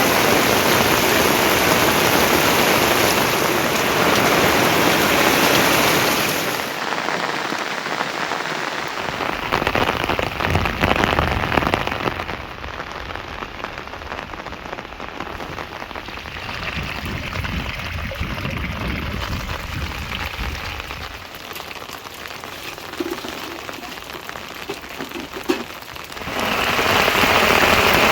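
Rain falling steadily, heavy at first, easing about seven seconds in to a lighter patter of separate drops, then heavy again near the end.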